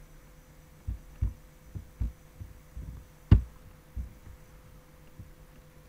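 Irregular soft thumps and clicks from a computer mouse being clicked and handled on the desk, about eight in three seconds, the loudest a sharper click a little past the middle. A faint steady electrical hum runs underneath.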